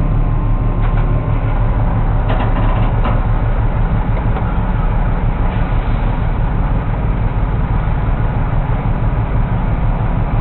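Engine running steadily at idle: a low, even hum with no change in pitch, with a few faint clicks in the first three seconds.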